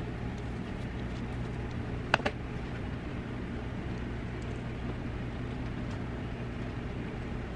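A steady low background hum in a kitchen, with one sharp knock about two seconds in.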